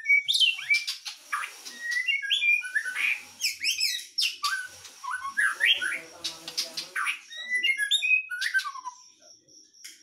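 Caged white-rumped shama (Medan murai batu) singing: a run of varied whistles and quick chirps that glide up and down, broken by short pauses. Its song has not yet fully opened up, as the seller puts it ("belum pecah").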